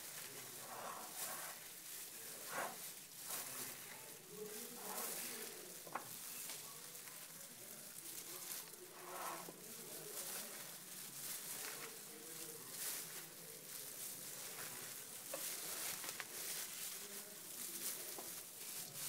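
Gloved hand mixing chopped spinach, potato and dry gram flour in a glass bowl: the thin plastic glove crinkles and the raw mixture rustles and crunches in an irregular run of soft crackles, with a few sharper rustles.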